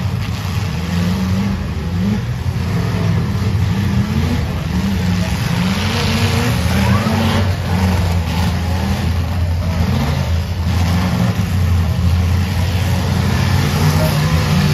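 Demolition derby car engines running and revving unevenly, their pitch rising and falling, over a background of crowd noise.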